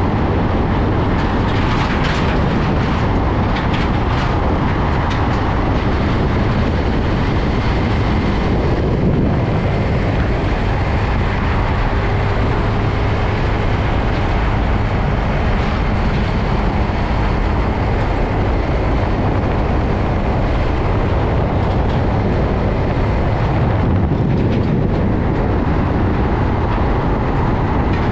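Container semi-trailer trucks rolling past at close range: steady tyre noise and diesel engine sound from the heavy wheels and tractor units, unbroken throughout.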